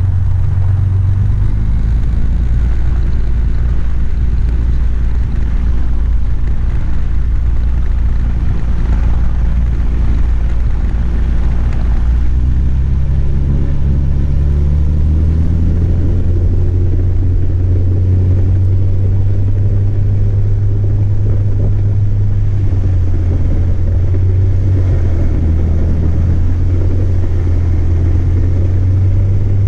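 Single-engine light aircraft's piston engine and propeller running steadily, heard inside the cockpit, the engine note stepping up in pitch about halfway through.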